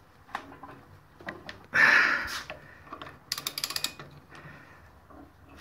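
Socket ratchet clicking in a fast run as a nut that has just been broken loose is backed off. A loud scraping clatter of metal tools comes about two seconds in, with a few separate clicks around it.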